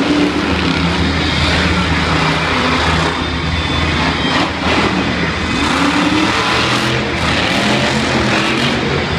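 El Toro Loco monster truck's supercharged V8 engine running hard and revving as the truck drives the arena track, its pitch rising and falling.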